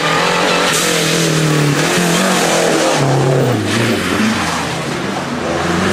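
Historic rally car engine at high revs as the car comes up to a bend. The engine note holds steady, then drops in steps about halfway through as the driver comes off the throttle for the corner.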